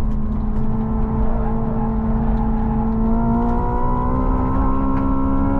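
Hyundai Ioniq 5 N at track speed, heard from inside the cabin: a steady humming drive tone with overtones over tyre and road rumble. The tone starts rising in pitch about halfway through as the car accelerates out of a corner.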